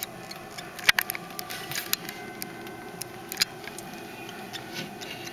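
Rustling of shredded paper-towel and wood-shaving bedding as a mother rat shifts over her newborn pups, with scattered sharp clicks, the loudest about a second in.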